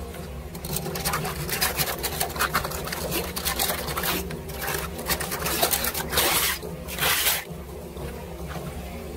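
Muddy floodwater splashing and sloshing as a hand tool scrapes and pokes at debris in a street drain's rusty metal grate, a run of sharp scrapes and clicks with two louder bursts near the end.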